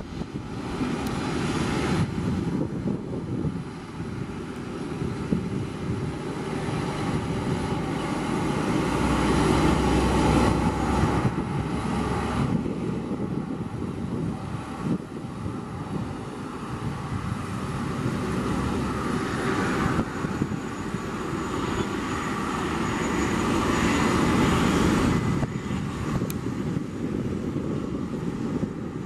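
Boeing 737-400's jet engines running as the airliner taxis, a steady rumble with a hiss that swells louder twice and eases back.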